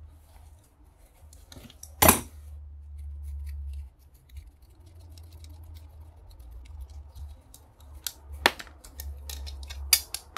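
Hand snips cutting and metal clicking at the end of a welding cable and its steel clamp: a sharp snip about two seconds in, more clicks around eight to ten seconds, and small ticks between.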